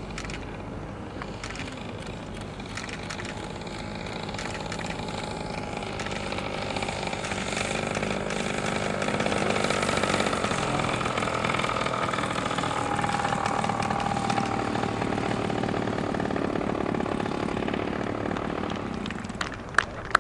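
Engine of a large radio-controlled scale P-51D Mustang running throttled back as the model lands, growing louder as it comes close and loudest as it rolls past on the runway, then easing off. A quick series of sharp, evenly spaced clicks starts right at the end.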